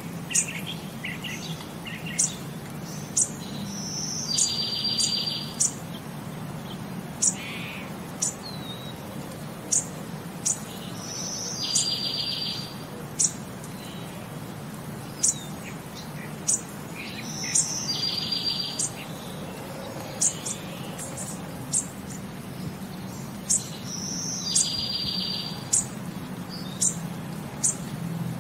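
Birds chirping: sharp high chirps about once a second, with a short trill about every seven seconds, repeating in the same pattern. A faint steady low hum runs underneath.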